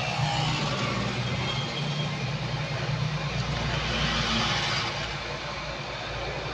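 A steady low engine hum over a broad background hiss.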